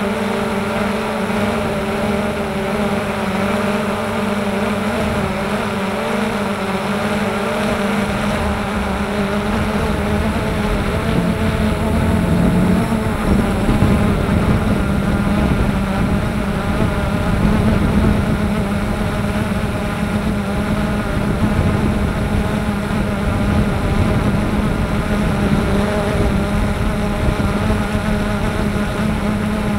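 Electric motor and propeller of a radio-controlled aircraft running steadily, a buzzing hum heard from its onboard camera, with wind rush growing from about a third of the way in.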